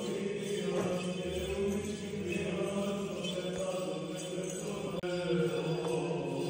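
Slow choral chanting, with voices holding long notes over a steady low drone, in the manner of Orthodox church chant.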